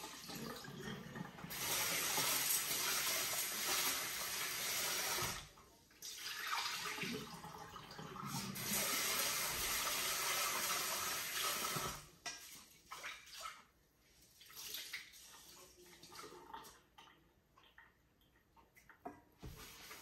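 Water running from a tap in two long spells, stopping about five seconds in and again about twelve seconds in, followed by a few quieter knocks.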